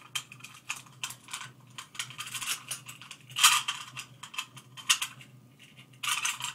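Small metal and plastic parts of an AR-15 20-round magazine clicking, scraping and rattling by hand as the follower and spring are worked into the magazine body. The clicks come irregularly, the loudest about three and a half seconds in, with another cluster near the end.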